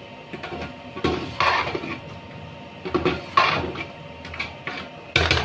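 A metal spoon stirring chicken korma with freshly added yogurt in a cooking pot, scraping and clinking against the pot in three bursts about two seconds apart.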